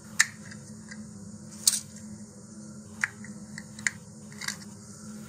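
Plastic fins of an Estes Solo model rocket being pried out of the slots in its plastic fin can after a dry fit: about five sharp plastic clicks spread over a few seconds, with a faint steady hum underneath.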